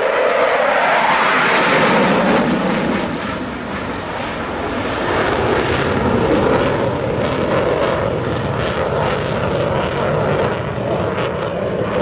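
Royal Netherlands Air Force F-16's single Pratt & Whitney F100 turbofan as the jet makes a low display pass. The loud jet noise drops in pitch over the first couple of seconds as it goes by, then carries on as a heavy rumble that eases a little and swells again midway.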